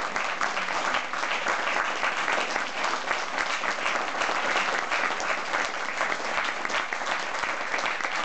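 A small seated audience applauding steadily, many hands clapping at once.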